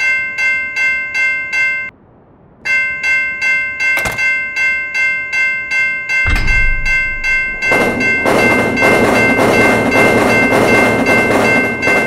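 Railroad crossing bell ringing about three strikes a second, breaking off briefly near two seconds in and then starting again. A low thud comes a little after six seconds, and from about eight seconds in a train's rushing noise joins the bell.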